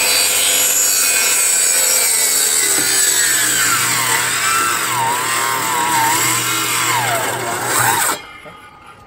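Circular saw cutting through wooden fence pickets, its motor whine dipping and recovering several times under load. The saw cuts off suddenly about eight seconds in.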